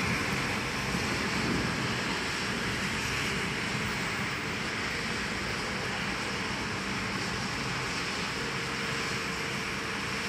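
Steady rushing hiss of rain and of traffic on a wet road, with a low rumble fading away in the first second or so.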